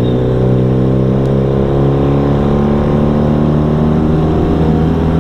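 Engine with an aftermarket racing exhaust running at steady, low revs, a constant droning note with only slight changes in pitch.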